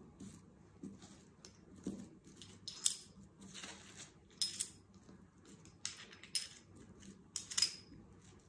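Scattered sharp metallic clicks and clinks, about six of them spread over several seconds, from small metal tools being handled and set down on a cutting table.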